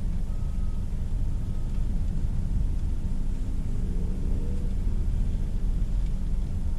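Steady low rumble of storm wind and heavy crashing surf, heard from inside a car.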